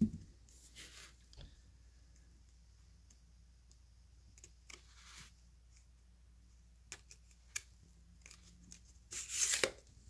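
Scattered handling noises: a knock at the start, brief rustles, two sharp clicks, and a louder rustling scrape near the end.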